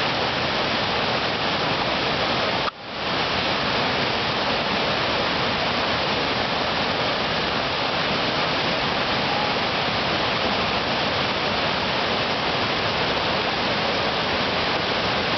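Whitewater rapids rushing: a loud, steady roar of churning river water, with a brief dropout about three seconds in.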